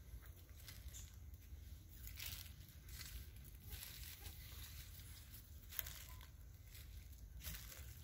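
Faint, scattered rustles and crackles over a low steady rumble.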